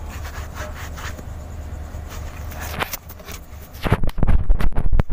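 Hand wiping the inside of a cylinder liner bore in an 8DC9 diesel engine block, cleaning off leftover diesel before the liner goes in. It makes faint scratching and rubbing over a steady low hum, and near the end comes a run of loud, irregular knocks and rubs.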